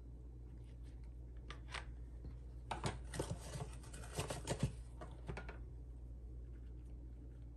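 Clear plastic plant cup and its paper-towel packing being handled and pulled open: a cluster of crinkles and light clicks about three to five seconds in, over a faint steady low hum.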